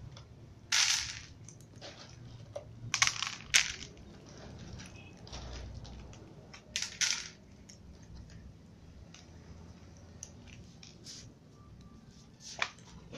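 Cats eating dry kibble from plastic trays: a few short bursts of crunching and clattering kibble, the loudest about a second in, around three to three and a half seconds in, and near seven seconds.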